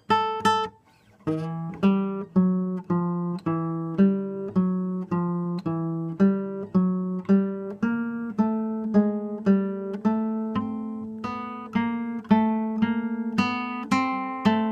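Nylon-string classical guitar playing a swing tune: plucked chords with a bass note on a steady beat, about two a second, each ringing briefly before the next. There is a short gap about a second in, then the beat runs on.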